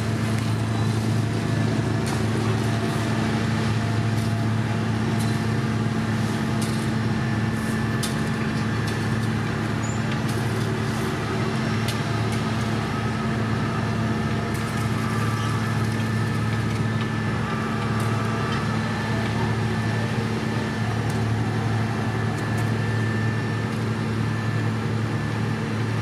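Diesel engines of a road paver and the dump truck feeding it, running steadily with a constant low hum, with scattered light clicks and clanks.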